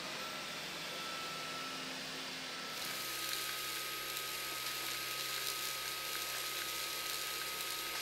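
Dyson Gen5detect cordless stick vacuum running: a steady high motor whine over a rush of air. About three seconds in the air rush becomes louder and brighter.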